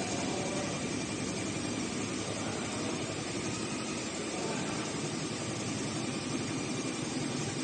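Roll-to-roll heating-wire sewing machine running steadily, a dense, even mechanical noise with no pauses.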